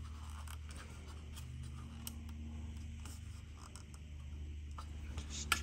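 Fingers pressing and rubbing a clear plastic window insert into place inside a 1:18 diecast model car's metal body shell: faint scratching with scattered small clicks and a sharper click near the end, over a steady low hum.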